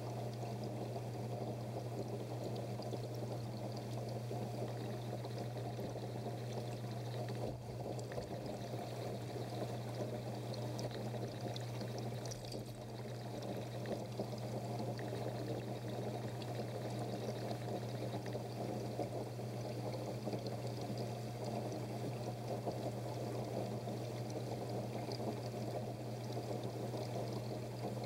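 Water pouring and splashing steadily, with a constant low hum underneath.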